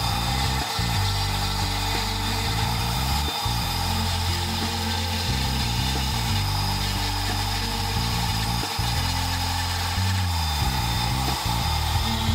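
Flexible-shaft rotary tool running steadily with a high whine, its handpiece carving notches into a wooden cane shaft.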